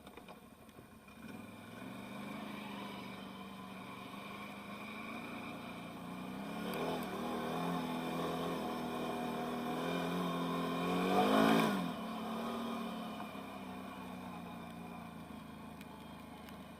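Can-Am Outlander 1000R XMR ATV's V-twin engine revving, growing louder and rising in pitch to its loudest about eleven and a half seconds in, then dropping in pitch and fading away.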